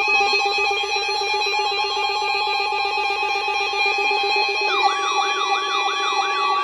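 Electronic alarm tones: a steady buzzing tone, joined about two-thirds of the way in by a fast-repeating siren-like warble that swoops up and down about three times a second.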